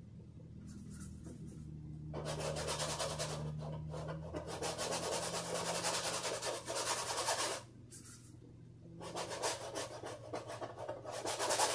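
Hog-bristle brush scrubbing acrylic paint onto a canvas in quick back-and-forth strokes. The scrubbing starts about two seconds in, stops briefly near eight seconds, then starts again.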